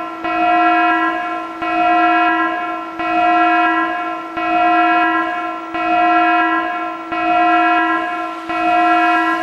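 An alarm horn sounding one steady, single-pitched tone in repeating pulses, each swelling and starting again about every second and a half.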